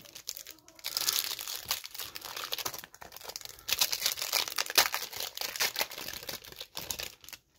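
Foil wrapper of a hockey card pack crinkling and being torn open, a dense crackling rustle in two long stretches that stops suddenly near the end.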